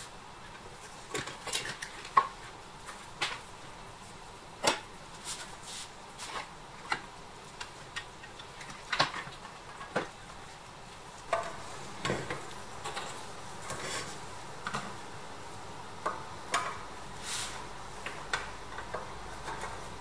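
Scattered light metal clinks and taps, irregularly spaced, from small metal parts and tools being handled in toy-restoration work.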